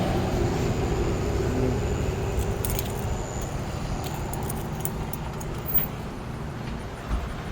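A vehicle engine running nearby, a steady low hum that slowly fades, with a few light metallic jingling clicks in the middle.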